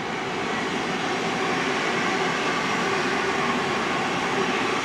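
Thameslink Class 700 electric multiple unit passing through the station at speed: a steady rush of wheels on rail with a faint electric whine, building over the first couple of seconds and then holding.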